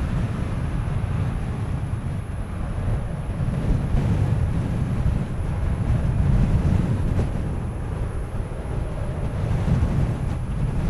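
Low, steady rumble of jet airliner engines at an airport, mixed with wind buffeting the microphone. The level swells and eases without any sudden events.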